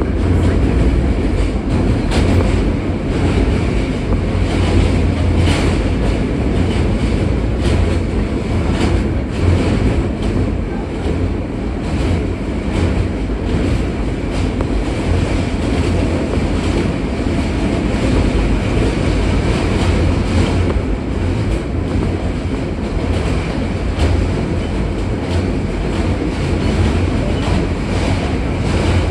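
R160 subway train running steadily, heard from on board: a loud, continuous low rumble with irregular clicks as the wheels pass over rail joints.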